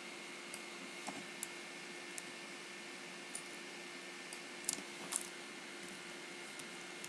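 Scattered computer mouse clicks, about nine short sharp clicks with the loudest pair a little past halfway, over a faint steady hiss and thin hum.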